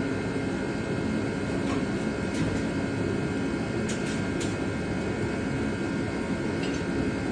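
Steady low rumble of a running machine, with a few faint light clicks around the middle.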